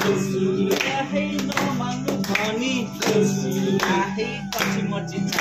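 Acoustic guitar strummed while several voices sing a song and hands clap along to the beat.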